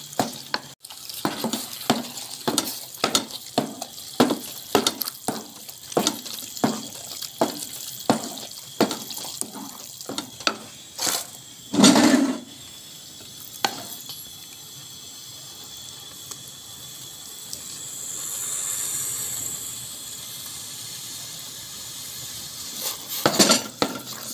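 Wooden spoon stirring saag and water in a metal pot, with wet sloshing and a knock about twice a second. A loud thump comes about twelve seconds in, then the stirring stops and leaves a steady hiss until it starts again near the end.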